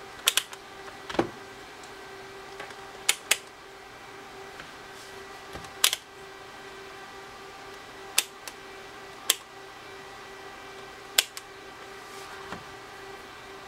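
Sharp clicks and taps from handling a digital multimeter and its test probes, about ten of them at irregular intervals a second or more apart, over a steady hum.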